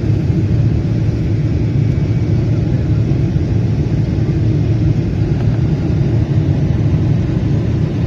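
Steady low rumble inside an airliner cabin in flight: jet engine and airflow noise heard from a window seat.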